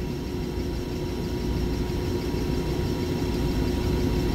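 Rooftop exhaust fan equipment running: a steady low rumble with a steady tone over it.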